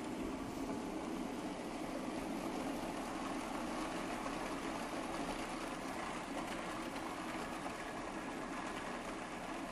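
Food processor running steadily, puréeing roasted butternut squash and onions with a little stock.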